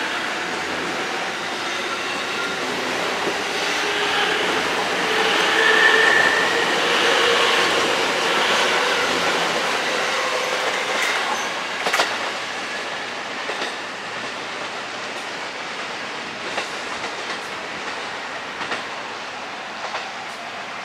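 JR East E257 series electric train running through the station, its noise building to a peak about six seconds in, with a brief wheel squeal there, then slowly fading. A sharp click sounds about halfway through, followed by a few fainter clicks from the wheels over the rail joints.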